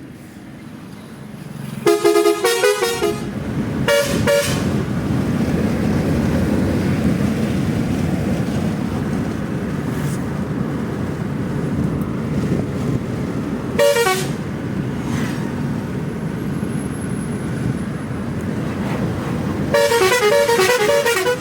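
Roots Hexatone multi-tone air pressure horn fitted to a car, sounding in separate blasts: a short run of changing notes about two seconds in, a brief toot about four seconds in, another brief toot about fourteen seconds in, and a longer run of alternating notes near the end. A steady vehicle rumble runs under and between the blasts.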